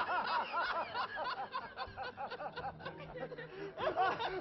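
High-pitched laughter: quick repeated giggling bursts, several a second, with a brief lull near the middle.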